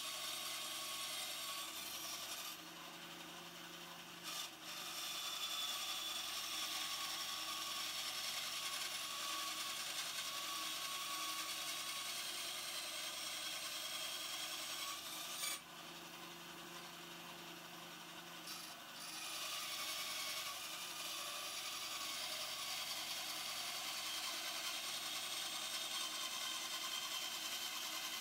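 Small bandsaw with a wood-cutting rip blade cutting through 6–8 mm aluminium plate: a steady rasping cut over the running motor. Twice, about two seconds in and again around the middle, the cutting noise eases off for a few seconds, leaving the motor's hum, then picks up again.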